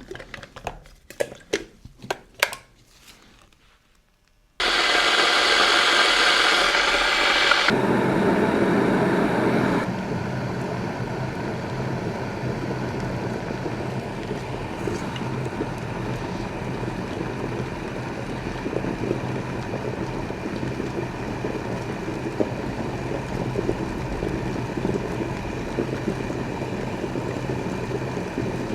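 A few clicks and knocks, then an electric kettle running with water and strawberries in it: a loud, steady rushing noise that starts suddenly, drops lower a few seconds later and carries on steadily with a low hum.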